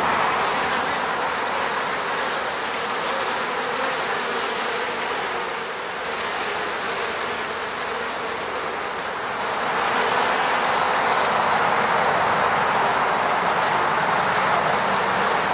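Honeybees buzzing around their hive: a steady, dense hum of many bees, dipping slightly in the middle and swelling again about ten seconds in.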